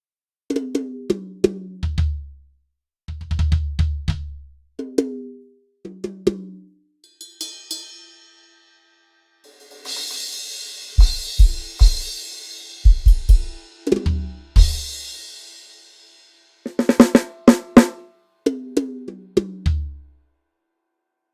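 Sampled drum kit from Addictive Drums 2 playing short phrases with brief silences between them. Tom fills step down from the high toms to the floor tom, and cymbal crashes ring over deep kick drum hits. A quick cluster of strokes comes about three-quarters of the way through, followed by another descending tom fill.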